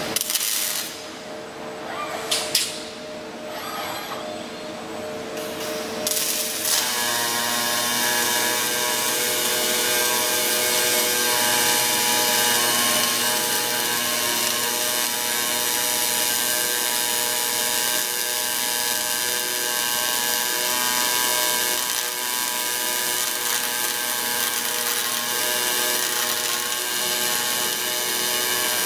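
Two robotic gas-shielded arc welders running at once: a continuous crackling, hissing arc noise with a steady buzz that starts about six seconds in and holds. Before that come a few short bursts and clicks.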